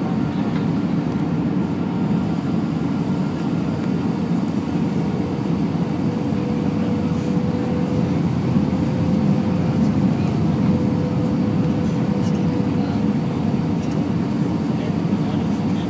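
Steady jet airliner cabin noise from the engines and rushing air, heard from a window seat over the wing while the plane flies low with its flaps extended. A faint hum runs through it, rising slightly in pitch about five seconds in.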